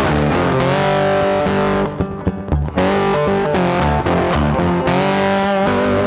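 Background music led by guitar, with notes bending in pitch and a brief drop-out about two seconds in.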